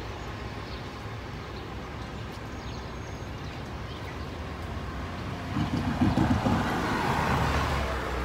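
Outdoor background noise, a steady low rumble that swells into a louder rushing sound about five and a half seconds in.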